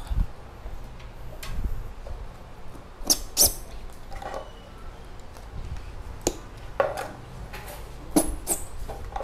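Irregular clicks, knocks and rustles from potted Phalaenopsis orchid plants and styrofoam filler being handled and pushed into place in the pot, with the sharpest knocks about three seconds in and again near the end.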